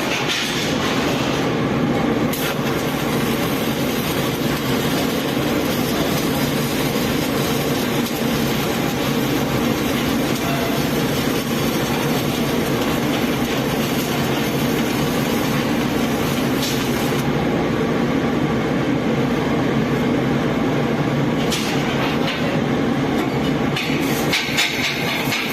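Arc welding power source running just after being switched on, set to 100 amps: a loud, steady, dense noise.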